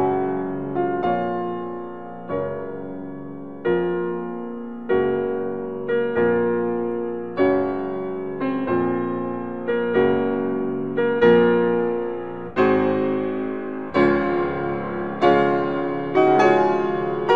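Background piano music: chords struck a little more than once a second, each left to ring and fade, with the notes coming quicker near the end.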